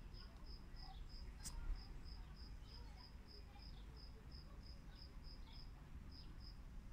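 Cricket chirping in a steady rhythm, a little over three chirps a second, with a short break near the end. A single sharp click about a second and a half in.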